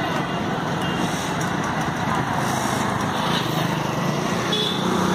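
A motor vehicle's engine running steadily as it drives along, heard from on board.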